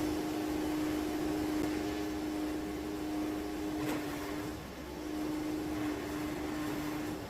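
Sawmill engine running with a steady hum, a short tick about four seconds in.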